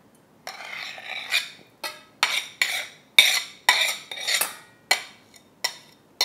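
A knife scraping soft chopped camembert off a plate into a stainless steel bowl: a scrape about half a second in, then a run of about eight sharp clinks of the knife against the plate and bowl, roughly two a second.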